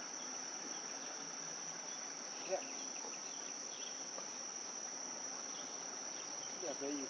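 Steady, unbroken high-pitched trill of insects, with one brief sharp knock about two and a half seconds in.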